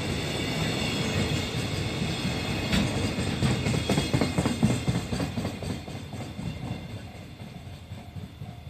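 Train running past, its wheels clattering over the rail joints, the sound fading away over the last few seconds.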